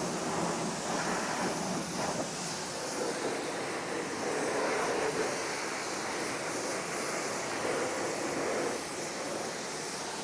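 Self-service car-wash pressure-washer lance spraying a jet of water over a car's body: a steady hissing spatter that swells a little and eases as the spray moves across the panels.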